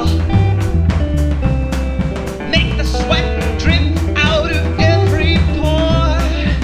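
A rock band playing live: a man sings lead over acoustic and electric guitars, electric bass and a drum kit keeping a steady beat. The sung line is strongest in the second half.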